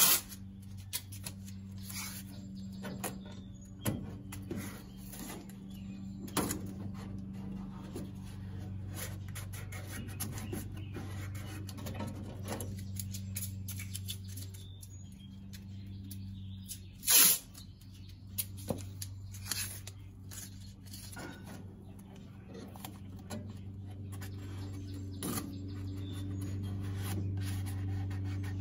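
Tape being torn off the roll and laid and pressed onto the inner wheel house sheet metal to make a patch template: scattered light taps and rustles, with two loud short rips, one at the start and one about halfway through, over a steady low hum.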